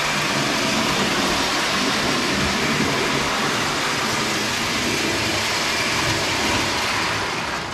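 Lionel Standard Gauge 318 tinplate locomotive pulling its passenger cars around the metal track: a loud, steady running noise of motor, gears and wheels on the rails. It cuts off near the end as the train is stopped.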